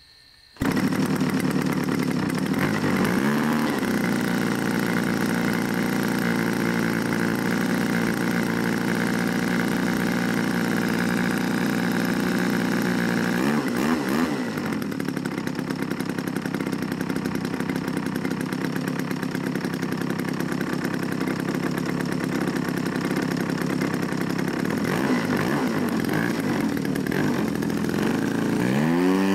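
A 50–60cc gas engine on a giant-scale RC aerobatic plane catches on a hand flip of the propeller about half a second in. It then runs steadily at idle, with a few brief blips of throttle, and the revs climb near the end as the throttle is opened.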